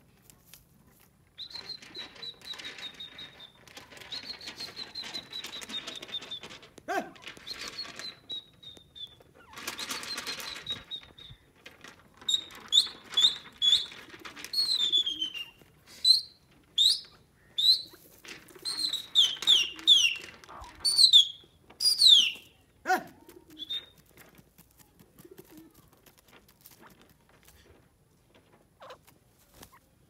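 Grey francolin calling: at first long, buzzy high notes that fall slightly in pitch, then a rapid run of loud, sharp whistled notes, each sweeping up and down, which stops abruptly after about ten seconds.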